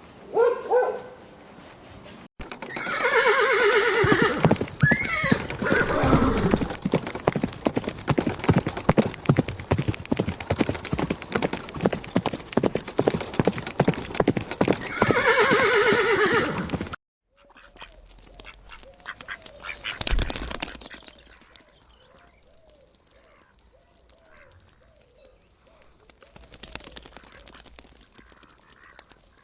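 Horse whinnying over a fast, steady patter of hoofbeats, with a second whinny as the hoofbeats go on. The horse sounds cut off suddenly, and a much quieter stretch of faint short repeated calls follows.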